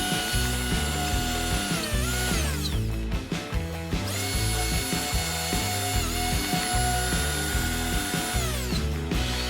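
Electric drill spinning a headlight-polishing attachment with a steady high whine, winding down to a stop about two and a half seconds in, starting up again about a second later and winding down once more near the end.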